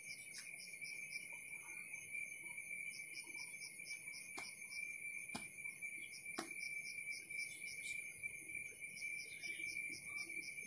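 Faint night insect chorus: crickets trilling steadily, with another insect chirping in short runs of quick pulses every few seconds. A few sharp clicks sound around the middle.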